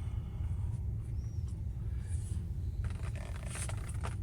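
Light scraping and clicking of a copper crimp ring being slid onto a PEX straight-through adapter by hand, over a steady low rumble.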